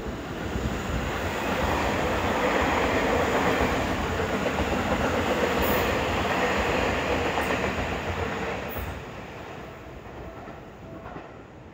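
Seibu 001 series Laview limited express passing close by: its running noise swells as it arrives, holds loud for several seconds with a few sharp clicks from the wheels, then fades away.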